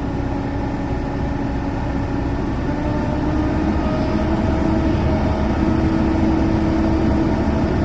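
A Komatsu PC200 hydraulic excavator's diesel engine running steadily, with a deep rumble and several steady tones above it. It grows a little louder from about three seconds in as the machine works during loading.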